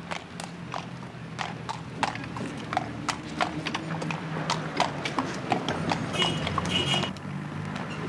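A coalman's cart horse's hooves clip-clopping along the street at a walking pace, about three hoof strikes a second.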